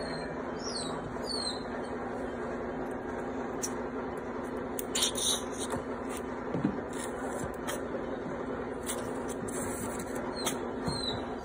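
Newborn French bulldog puppies giving a few faint, short, high squeaks that fall in pitch, about a second in and again near the end, over a steady hum. Brief clicks and rustles of handling come about five seconds in.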